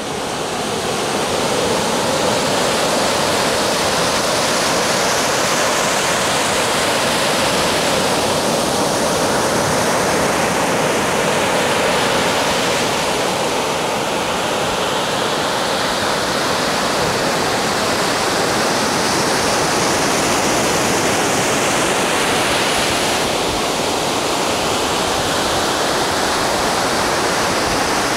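Small ocean waves breaking close by and foaming up a sandy shore: a steady rush of surf that swells and eases every several seconds.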